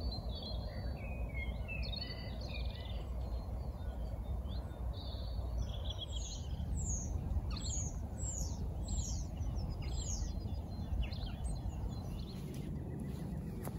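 Songbirds singing: a warbling song, then from about six seconds in a string of quick, sharply falling notes repeated several times, over a steady low background rumble.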